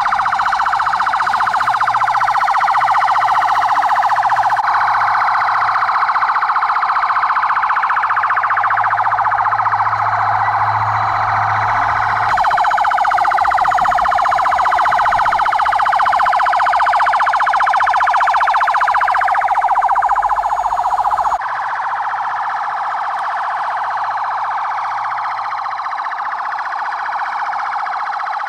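Several police car sirens wailing together, their rising and falling tones overlapping. Near three quarters of the way through it drops a little in level.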